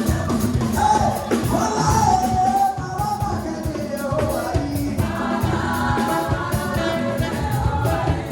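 Live gospel music: a band playing with a group of singers singing together.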